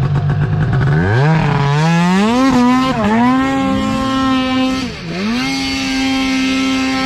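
Two-stroke mountain snowmobile engine revved from idle to high revs and held there as the stuck sled's track spins in deep powder trying to dig out. The revs dip briefly twice before climbing again.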